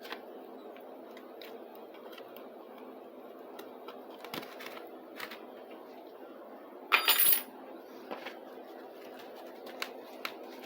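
Cutting through tape on a plastic Hot Wheels ramp: scattered small clicks and scrapes over a steady background hum, with one louder scraping cut lasting about half a second roughly seven seconds in.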